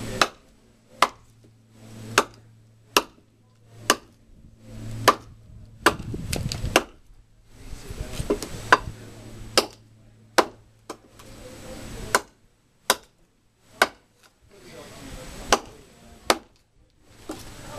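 A heavy hand-forged knife blade chopping into a short piece of hard, seasoned maple firewood on a chopping block. It strikes with sharp thwacks about once a second, a little unevenly.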